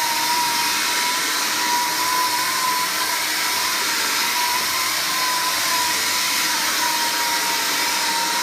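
Vax Air cordless vacuum cleaner running steadily: a high, slightly wavering whine over a steady rushing hiss.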